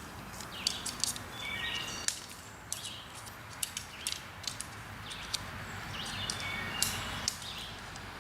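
Birds chirping in short calls of a few notes each, repeated every second or so, over a steady outdoor background with scattered sharp clicks.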